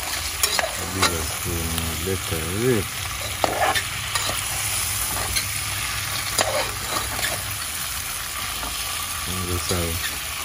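Curried chicken feet sizzling steadily as they fry in a pot, stirred with a metal slotted spoon that scrapes and clinks against the pot several times.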